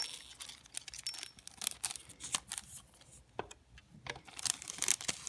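Small beads clicking and rattling as they are handled and set down on a work surface, in irregular clusters of sharp little clicks with a quieter pause a little past the middle.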